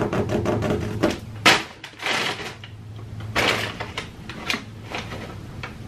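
Handling and scuffling noises: a quick run of small clicks, then several short rustling bursts, over a steady low hum.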